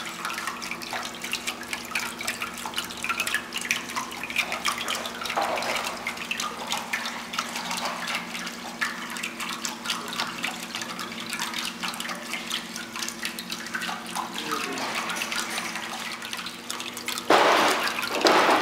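Water wall running: water sheeting down a glass panel and splashing into the reservoir below, with many small drips and a steady low pump hum under it. The splashing gets louder for about a second near the end.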